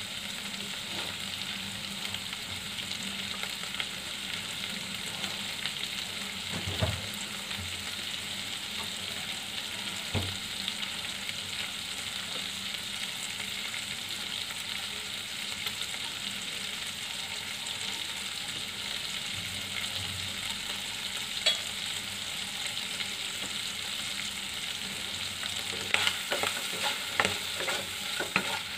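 Chicken liver pieces sizzling steadily in a little oil in a nonstick kadai over low heat, with a few scattered pops. Near the end a utensil stirs and scrapes the pieces in the pan.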